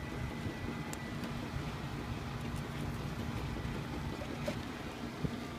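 Steady low engine drone with a faint constant whine, over wind noise, and a couple of light knocks near the end.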